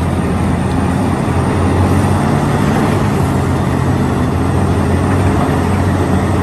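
Heavy engine running steadily with a constant low drone, like the engine of a large excavator or truck.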